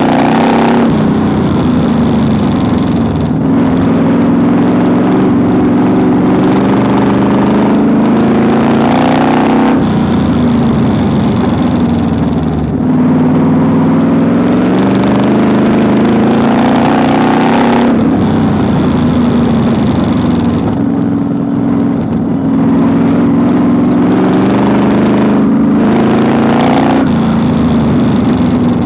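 Vintage modified race car's engine at racing speed, heard from inside the cockpit. The revs climb steadily for several seconds and then drop back sharply, three times over, the throttle lifting for the corners of a dirt oval.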